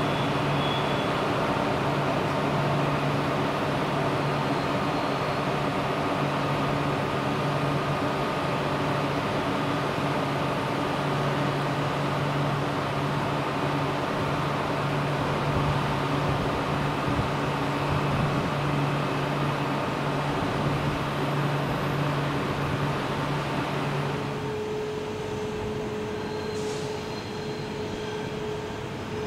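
SNCF TGV high-speed train moving slowly past, with a steady low hum over a broad rumble. About 24 seconds in the sound changes to a Belgian electric multiple unit approaching, with a single steady whining tone.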